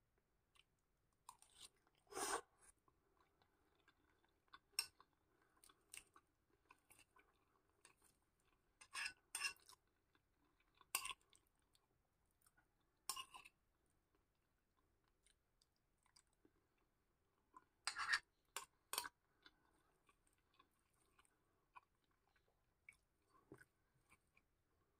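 A person chewing kupat lengko, rice cake and tofu in peanut sauce, close to the microphone. Scattered sharp clicks and smacks come every second or two, with a metal spoon scraping and tapping a glass bowl.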